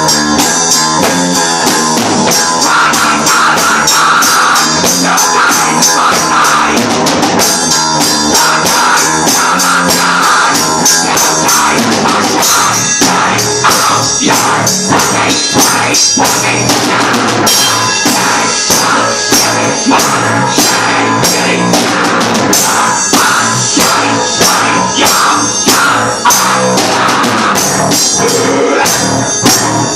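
A rock band playing its own heavy song loud: a drum kit keeps a fast, driving beat under guitar.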